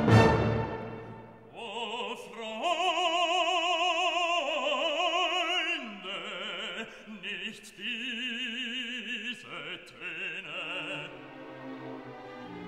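Background music: a loud orchestral chord dies away at the start, then a single operatic voice sings long notes with a wide vibrato.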